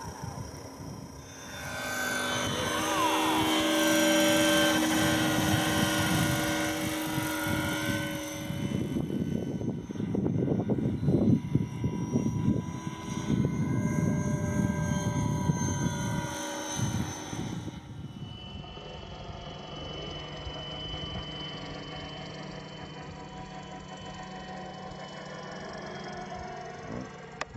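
Electric motor and propeller of a radio-controlled model Cessna buzzing as it flies, the pitch falling as it passes about three seconds in. There is a rougher, noisier stretch in the middle, and a quieter steady hum later on.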